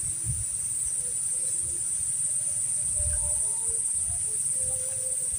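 Insects chirring in a steady, unbroken, high-pitched drone, with occasional low rumbles underneath.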